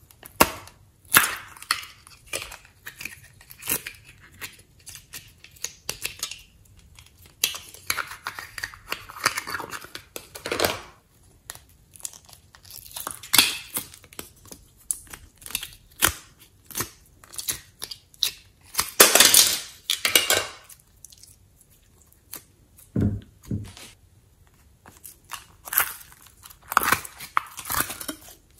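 Hands squeezing and pulling sticky slime out of plastic toy-shaped containers, with sticky peeling noises and plastic clicks coming in irregular bursts, loudest about nineteen seconds in.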